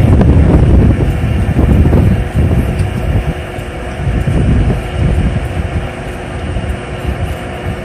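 Low rumble of a rocket's engines during ascent, heard from far off: loud and uneven, easing a little after about two seconds.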